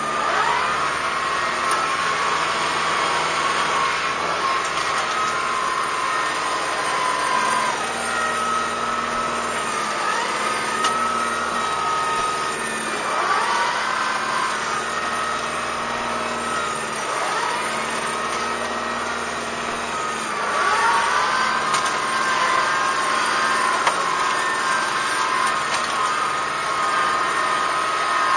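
Kubota M5140 tractor's diesel engine running steadily while dragging a box blade over dirt, its pitch dipping and recovering several times as the load comes on and eases off.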